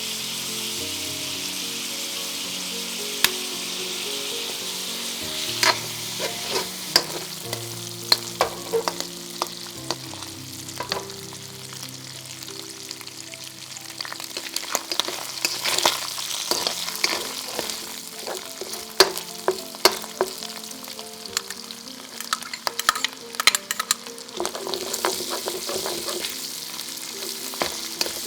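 Food frying and sizzling in a hot pan, stirred with a utensil that clicks and scrapes against the pan again and again from about five seconds in.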